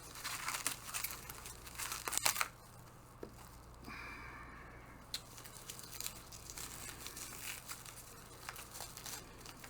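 Packing material crinkling and tearing as a package is unwrapped by hand, busiest and loudest for the first couple of seconds, then quieter scattered crinkles and clicks.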